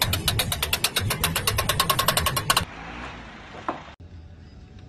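Rapid hammer blows on a thin galvanized steel stud channel resting on a wooden block, about nine strikes a second, stopping abruptly a little over halfway through. A quieter stretch of faint noise with a single click follows.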